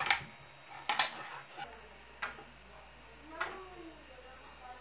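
Light clicks and knocks of 3D-printed plastic molds being pried off a 3D printer bed with a metal scraper and handled, about one sharp tap a second.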